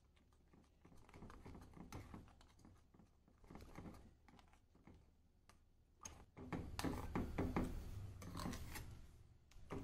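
Steel spoon stirring thick moong dal payasam in a steel pan, scraping and tapping against the pan in quick irregular clicks, getting louder in the last few seconds.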